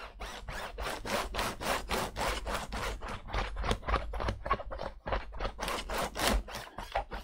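A damp cloth rubbing quickly back and forth over a laptop's keyboard and plastic palm rest, a steady run of short wiping strokes, several a second.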